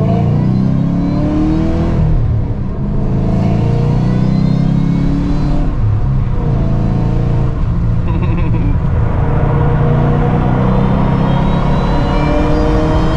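Supercharged 5.4-litre V8 of a 2010 Shelby GT500 running under way, heard from inside the cabin. There is a brief dip about two and a half seconds in, and then the engine note holds steady and slowly rises in pitch over the second half as the car gathers speed.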